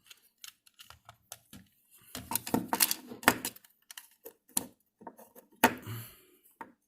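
Plastic parts of a game controller being handled and fitted together: a string of small clicks and rattles, busiest about two to three and a half seconds in.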